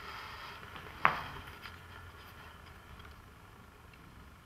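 A page being turned: a short paper rustle with one sharp snap about a second in.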